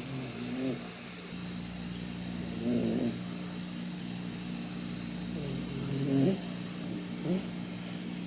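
A sleeping black cat purring close up, a steady low rumble. Four short, louder vocal sounds from the cat come a second or more apart.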